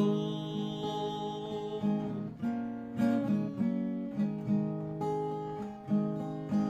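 Acoustic guitar strummed slowly, one chord about every second, in a country-blues song. A sung word, "cold", is held over the first two seconds.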